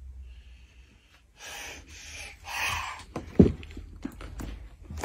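A small child breathing hard with excitement, a few loud panting breaths, then a sharp thump about halfway through followed by small knocks and rustles of handling.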